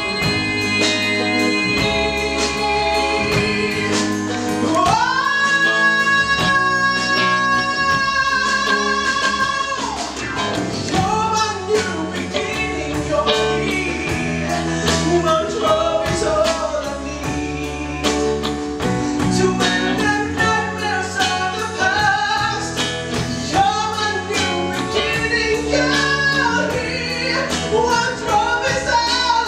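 A male singer performing live with a band of keyboard, guitar and drums. About five seconds in his voice slides up into a long note held with vibrato, then carries on with the melody.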